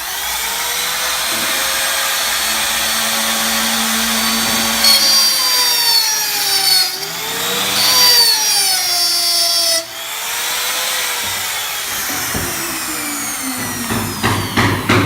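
Electric woodworking power tool motor running with a steady whine, its pitch dipping and recovering several times as it cuts wood. It drops sharply about ten seconds in and fades out, followed by a few knocks near the end.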